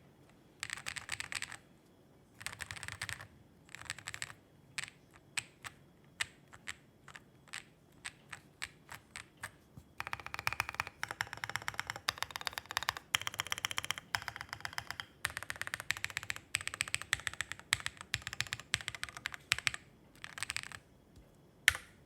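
Owlab Spring 65 mechanical keyboard with matcha switches, a POM plate and KAT-profile keycaps being typed on: a few short bursts of fast typing, then single keystrokes about two to three a second, then long runs of fast continuous typing, and one louder single keystroke near the end.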